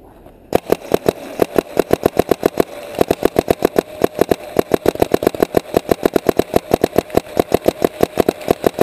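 Paintball marker firing in rapid, steady strings of about ten shots a second, starting about half a second in.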